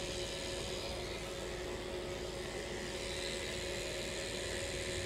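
Rotary pen-style tattoo machine running with a steady whir as its needle cartridge works into skin.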